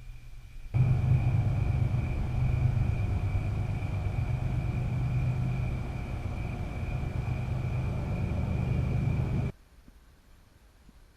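A steady low mechanical rumble with a thin high whine over it. It cuts in abruptly about a second in and cuts off just as abruptly near the end.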